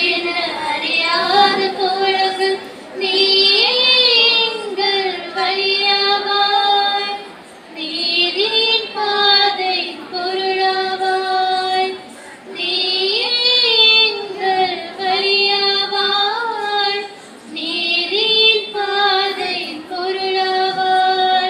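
A woman sings a slow melody unaccompanied, in phrases of about four seconds with short breaths between, holding long steady notes.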